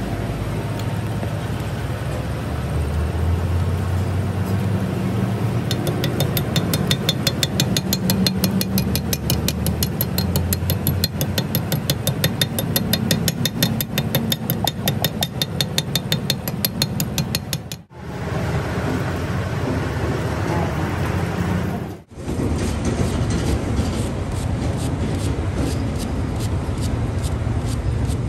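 Hand steel-wire brush scrubbed back and forth over a metal steering tie rod end in fast, even scratchy strokes, about four to five a second, over a steady low rumble. The sound breaks off twice, briefly.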